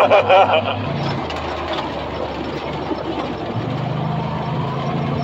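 Side-by-side UTV's engine running at low speed, heard from on board; the engine note drops about a second in and picks up again later.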